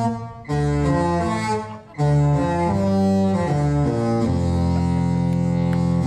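The Disney Dream cruise ship's musical horn playing a melody in low notes: three short phrases, the last ending on a long held note.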